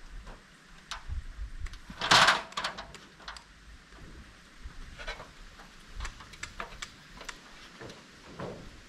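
Irregular knocks and clatter from building work on a timber roof frame and stepladder, with one loud, short, harsh sound about two seconds in.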